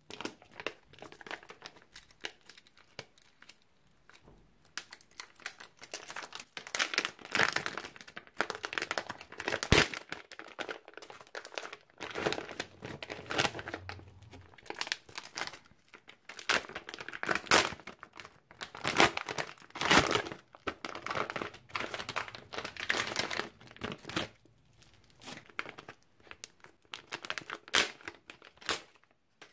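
Crinkly foil and plastic craft packets rustling and crinkling as they are handled and squeezed, in uneven spells with a few sharp clicks.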